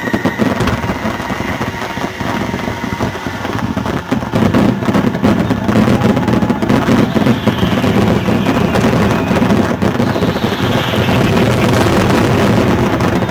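Fireworks finale barrage: a dense, continuous run of booms and crackles that thickens about four seconds in.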